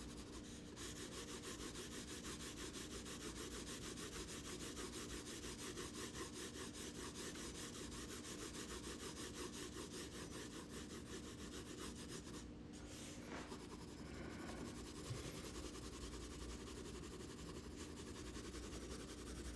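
Graphite pencil rubbing on sulphite paper in rapid, even vertical blending strokes.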